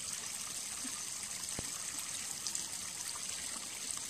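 Steady trickle of running water, with a single faint click about a second and a half in.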